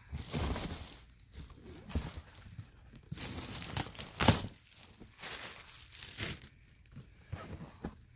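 Packaging crinkling and tearing as a parcel of shoes is opened by hand, in irregular rustles with one sharper, louder rip about four seconds in.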